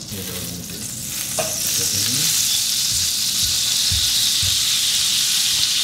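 Browning butter sizzling hard in a stainless frying pan as fresh lime juice is squeezed into it. The sizzle swells over the first couple of seconds, then holds steady.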